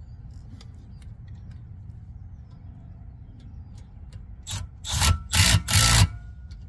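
Brake rotor turned by hand with the new pads rubbing lightly against it: a few loud scraping strokes about five seconds in, over a steady low hum.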